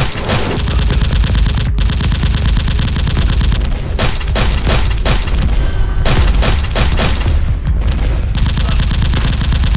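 Film soundtrack gunfire: two long bursts of rapid automatic fire, the first starting about half a second in and the second near the end, with separate heavy single shots between them over a constant deep rumble.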